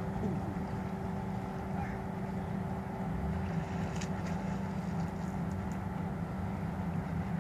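Steady low engine hum with a constant tone held over it; a few faint ticks about four seconds in.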